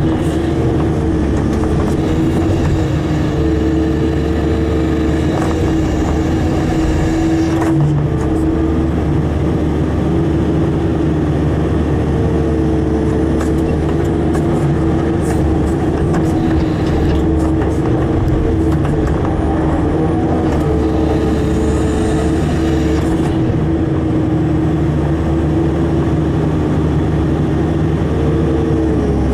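Caterpillar tracked excavator's diesel engine running steadily with a constant engine and hydraulic tone while the bucket pushes and levels loose soil. A few clicks and knocks come through in the middle stretch.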